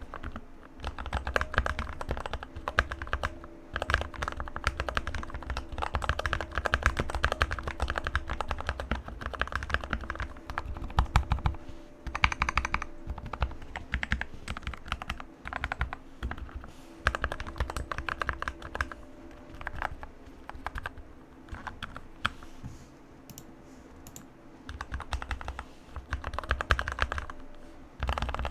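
Typing on a Keychron K2 mechanical keyboard with Gateron Red linear switches: a fast, continuous run of key clacks that thins out and goes softer for a few seconds about three-quarters of the way through.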